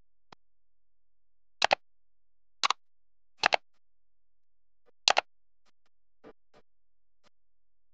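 Computer mouse click sound effects: four loud double clicks about a second apart, then a few faint ticks.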